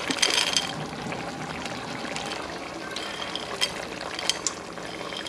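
Frozen green peas tipped from a plate into a pot of stew: a rush as the bulk of them slides in at the start, then single peas clicking in now and then against a steady hiss.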